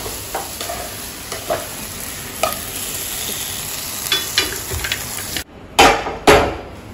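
Onions, tomatoes and green chillies sizzling in ghee in a frying pan while a wooden spatula stirs them, with small scrapes and clicks. About five and a half seconds in the sizzling cuts off, followed by two loud knocks.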